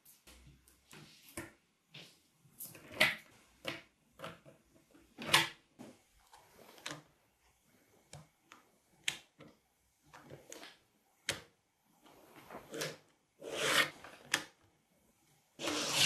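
Magnetic balls clicking and rattling as sheets of them are laid and pressed into place and a plastic card slides between the layers. Irregular sharp clicks and short scraping rattles come about one every second or two, with a busier stretch near the end.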